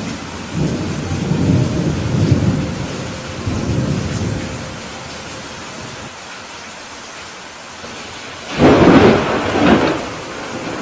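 Heavy rain falling steadily, with a low rolling rumble of thunder in the first few seconds and a louder, sharper thunderclap about eight and a half seconds in that fades over a second or so.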